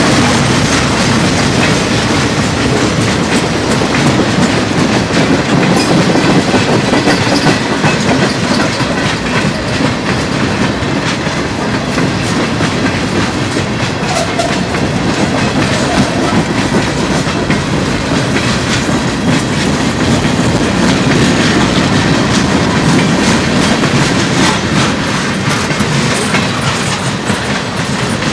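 Freight cars (boxcars, covered hoppers and a tank car) rolling past close by: a steady rolling rumble of steel wheels on rail, with frequent clicks as the wheels cross rail joints.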